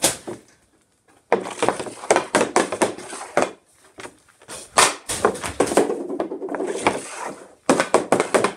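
Hockey stick blade hitting pucks on a plastic dryland shooting tile: a shot with a sharp crack right at the start, then, after a second's pause, a run of quick clacks of the blade handling and striking the puck, with the puck and blade scraping over the tile.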